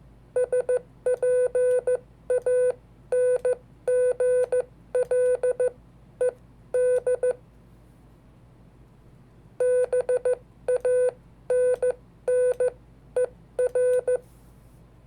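Hand-sent Morse code (CW) heard as a keyed sidetone: one steady beep switched on and off in dots and dashes, grouped into letters, with a pause of about two seconds near the middle between two runs of characters.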